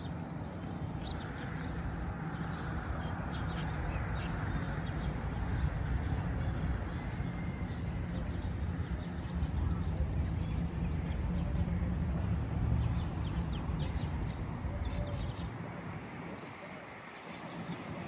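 Outdoor street ambience: many small birds chirping over a steady low rumble.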